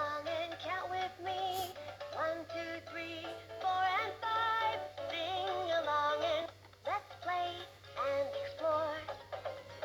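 VTech Latches and Doors busy board playing its electronic song: a synthesized voice singing a short, bouncy tune through the toy's small speaker, over a faint steady low hum.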